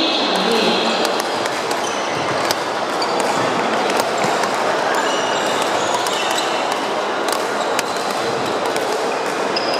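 Badminton rackets striking shuttlecocks: sharp clicks every second or so from several courts, with short sneaker squeaks on the wooden court floor, over steady sports-hall noise.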